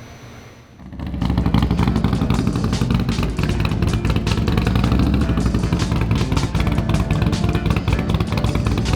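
Music with drums and guitar, starting about a second in after a brief quiet moment.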